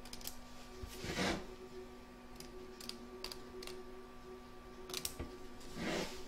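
Small curved-tip scissors snipping fabric in short, scattered clicks as excess appliqué fabric is trimmed away, with two louder rustling swishes of the fabric and hoop being handled, about a second in and near the end. A faint steady hum lies underneath.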